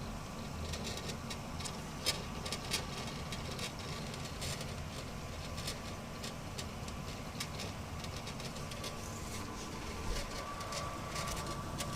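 WD Black 4TB 3.5-inch hard drive running, with a steady spin hum and a faint whine, and irregular rattling clicks from the drive as it works.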